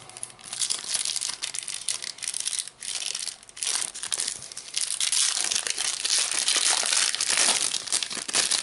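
Wrapper of a Topps Mega Match Attax trading card pack being torn open and crinkled in the hands: a dense, irregular crackling that is loudest over the last few seconds.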